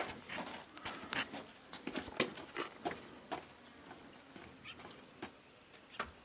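Light, irregular clicks and taps, several a second at first, thinning out and growing fainter toward the end.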